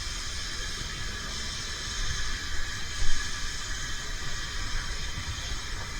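Narrow-gauge steam train running: a steady hiss over a low rumble, with a louder knock about three seconds in.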